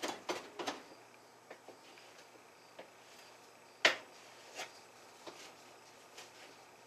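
Kitchen knife chopping bacon on a cutting board: a quick run of knocks at first, then scattered single chops, the loudest about four seconds in.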